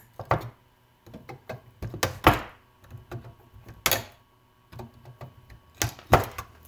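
Diagonal cutters snipping through the thin nickel bus bars on a lithium battery pack: several sharp snaps a second or two apart, with small clicks of the cutter jaws between.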